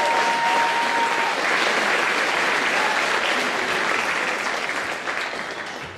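Audience applauding steadily, dying down near the end, with one voice holding a cheer in the first second.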